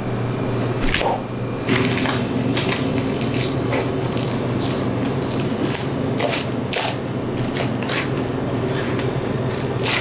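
A boning knife cutting through the fat and membrane of a beef side, a run of short, irregular cutting and tearing strokes, with a steady low hum underneath.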